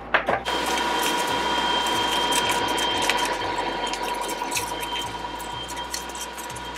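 A steady machine-like whirring hum with a constant high tone sets in abruptly about half a second in. Over it come small scattered clicks and squelches of hands mixing seasoned raw pork chops in a plastic bowl.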